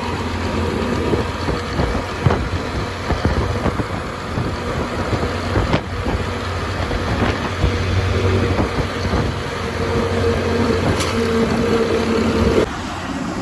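Motorcycle riding at speed on a highway: its engine runs steadily under a constant rush of road and wind noise, with a truck's engine just ahead, and a few faint sharp ticks.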